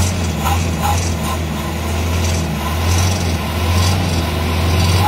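Mitsubishi 4D56 four-cylinder turbodiesel running steadily, heard at the exhaust tailpipe as an even, low exhaust note.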